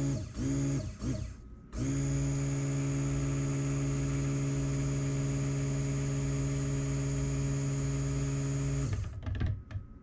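Handheld stick blender running in a plastic jug of cold process soap batter, blending it toward trace. It is pulsed briefly a couple of times, then runs steadily for about seven seconds and stops near the end.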